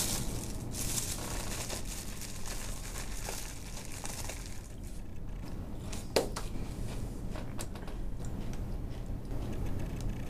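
Soft rustling and crinkling, with one sharp click about six seconds in and a few fainter ticks after it, over a steady low hum.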